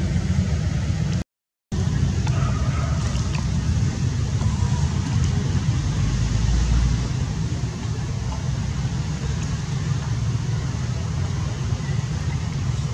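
Steady low rumble of background noise, cutting out completely for about half a second a little over a second in.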